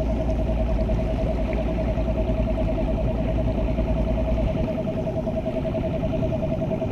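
Bass boat's outboard motor running under way with a steady whine over its rumble; the deepest part of the rumble drops away about two thirds of the way through, and the engine cuts off abruptly at the end as it is switched off.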